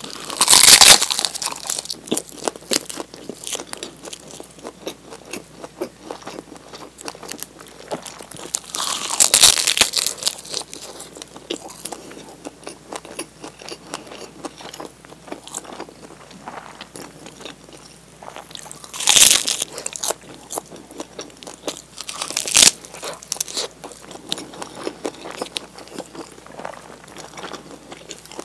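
Bites into a nori-wrapped rice ball (onigiri), the crisp seaweed crunching, with chewing and small crackles between. Four loud crunching bites: one right at the start, one about nine seconds in, and two around twenty seconds in.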